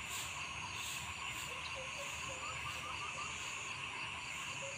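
Rural ambience: a steady insect chorus with a high, shrill, pulsing drone, and a run of short chirps from small animals about two seconds in.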